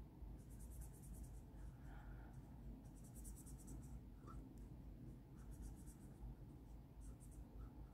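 Faint scratching of a felt-tip Sharpie marker on paper as an icon is coloured in, coming in several short bursts of strokes.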